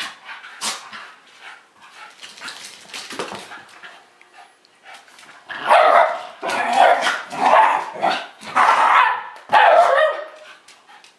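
Shiba Inus play-fighting, with barking: scattered quieter sounds at first, then a run of about six loud barks from about halfway in that stops shortly before the end.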